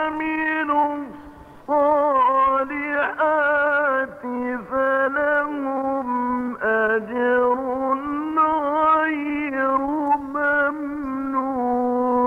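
A male Quran reciter chanting in the melodic mujawwad style: long held notes that slide and turn through ornamented pitch runs, with a short breath pause about a second in.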